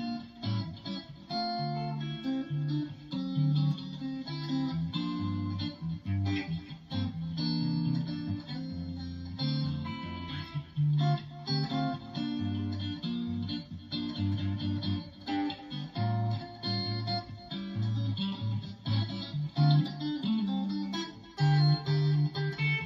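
Stratocaster-style electric guitar playing a chord progression, with frequent chord changes and picked notes.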